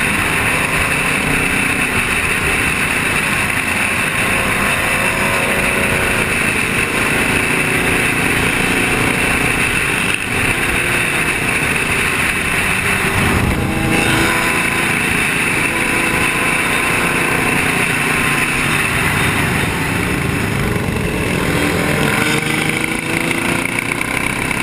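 Engines of a pack of sport motorcycles running at highway speed, with several rising revs near the end, under a steady rush of wind on a helmet-mounted microphone.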